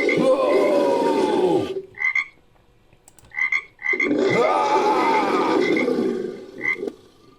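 Frog croaks layered into a made-up creature sound effect: two long croaking calls with falling pitch, one about a second and a half long and one about three seconds long, with short croaks between them.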